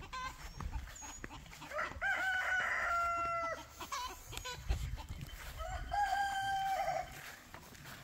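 A rooster crowing twice, each crow a long held call, the first about two seconds in and the second near the end, with chickens clucking softly around them.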